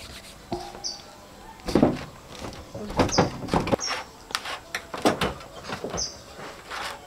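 Hands kneading and mixing crumbly rice flour dough in a stainless steel bowl: irregular soft thumps and rubbing against the bowl. Several short high bird chirps sound in the background.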